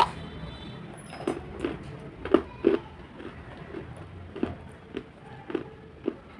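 Someone biting and chewing dried white khadi (edible chalk), with a crisp crunch about every half second.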